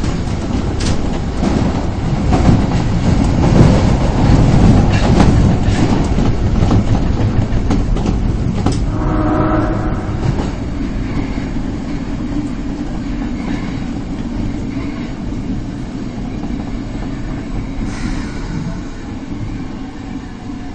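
Subway train heard from inside the car while running: wheel and track rumble with clicks of rail joints, and a brief whine about nine seconds in. The rumble eases off as the train slows on its approach to the station.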